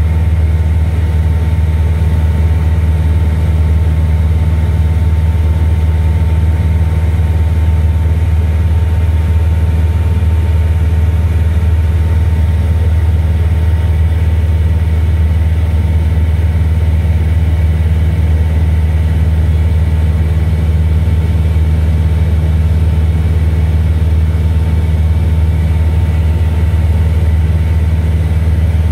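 Single-engine light aircraft's engine and propeller running steadily in cruise, heard inside the cockpit as a loud, even drone with no change in pitch.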